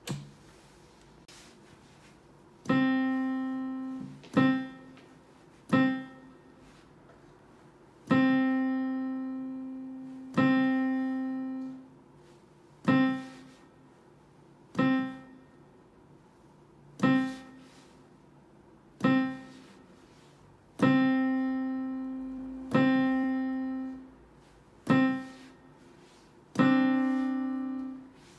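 Korg SP-250 digital piano sounding the same note, around middle C, over and over. Some strikes ring on and fade slowly over a second or two, while others are cut off short: the sustain foot pedal is being pressed and released to check that it works.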